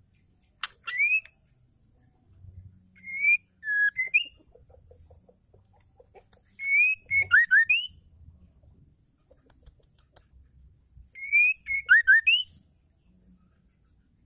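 White-rumped shama giving short bouts of clear, rising whistles, four phrases a few seconds apart.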